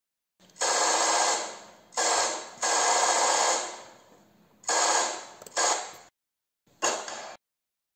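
Gunfire sound effects: six separate bursts of firing, each lasting up to about a second and a half and fading or cutting off before the next.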